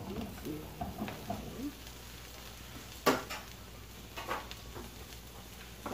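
Chopped green chilies frying in oil with shallot and garlic in a frying pan, a faint sizzle. About three seconds in there is a sharp knock, the loudest sound, and a lighter one about a second later.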